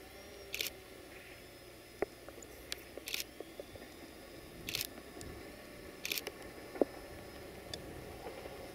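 A diesel railcar running faintly in the distance, with scattered sharp clicks, the loudest near the end, and four brief hissy bursts close to the microphone.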